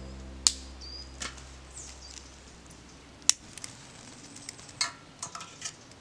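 A strummed acoustic guitar chord dies away over the first two seconds. A handful of sharp clicks and snaps follow, from someone handling a small twig-fed camp stove as it is lit.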